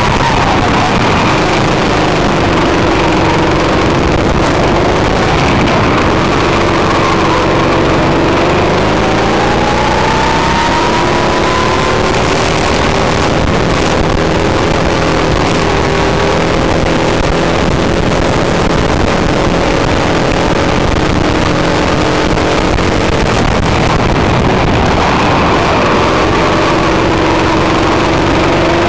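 Go-kart engine heard from on board the kart, running hard, its pitch climbing on the straights and dropping back into the corners, over and over.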